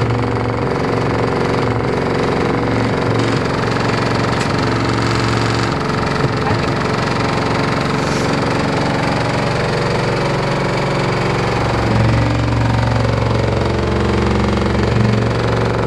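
LG F14A8RD washer dryer running with an empty drum, making a loud, continuous mechanical noise over a steady low hum while the machine shakes hard: a sign of a fault in the machine.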